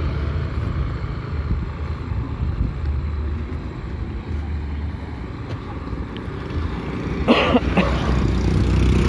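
Motor scooters and small motorcycles passing on the road, a steady low engine rumble that grows louder near the end. A brief voice sounds about seven seconds in.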